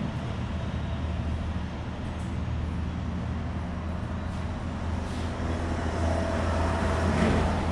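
Steady low engine rumble, getting somewhat louder in the last couple of seconds.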